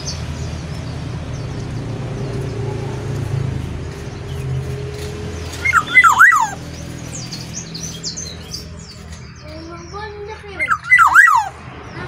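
Black-naped oriole (kepodang) singing two loud, fluty whistled phrases about five seconds apart. Each phrase is a few quick liquid notes sliding up and down.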